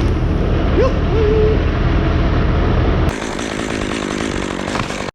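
Gas chainsaw running steadily as it cuts into a large tree, with a short hoot-like call about a second in. The deep engine sound thins out about three seconds in.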